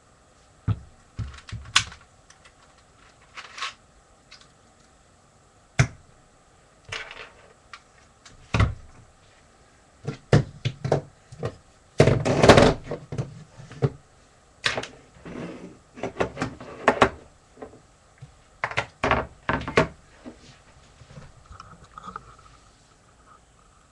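Irregular clicks, knocks and clacks of Lego plastic pieces of a brick-shooting gun being handled and fitted together, with a busy run of rapid clatter about halfway through.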